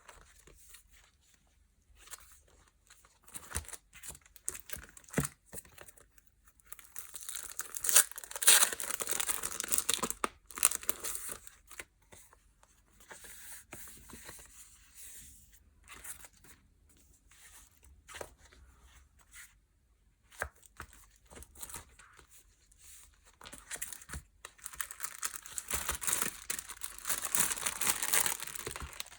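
Packaging being torn open and crinkled by hand. There are two longer stretches of tearing and crinkling, a quarter of the way in and near the end, with scattered small clicks and rustles between them.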